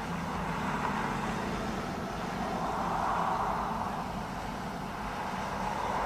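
Steady motor-vehicle noise: a low hum under a rushing sound that swells and fades every couple of seconds.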